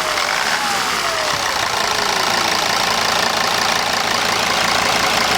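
Mercedes-Benz 270 CDI 2.7-litre five-cylinder common-rail diesel idling steadily, just started after the crankcase oil separator was replaced. A faint whistle falls in pitch over the first two seconds or so.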